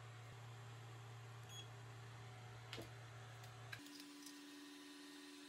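Near silence: a faint steady low hum with a couple of light clicks, which stops abruptly about four seconds in and gives way to a faint, steady, higher-pitched tone.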